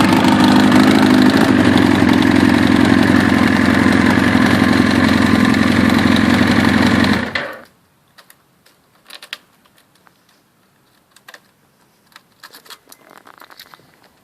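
Kawasaki ZX-9R's inline-four engine running steadily through a leaking Viper exhaust, pulled loose in a crash, then shut off about seven seconds in. A few faint clicks follow.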